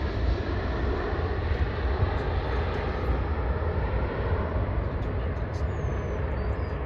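Airplane engine noise, a broad rushing sound that slowly fades as the aircraft moves away, over a steady low rumble.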